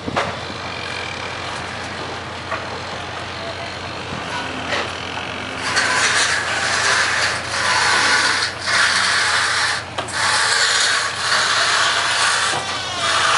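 A loud, harsh rasping or scraping noise sets in about six seconds in and carries on, broken by a few short pauses.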